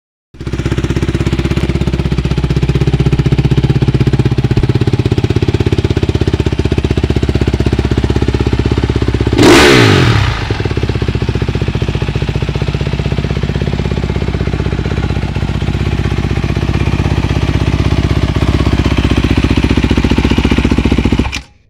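A 2012 Honda CRF250R's single-cylinder four-stroke engine, freshly rebuilt, running steadily on the stand. About halfway through there is one quick throttle blip: the pitch rises and falls back, and it is the loudest moment. The engine sound stops abruptly shortly before the end.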